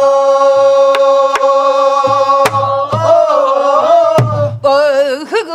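Voices holding one long sung note of a Namdo Korean folk song, wavering after about three seconds and breaking into a wide shaking vibrato near the end, over sharp strokes and low thuds of buk barrel drums.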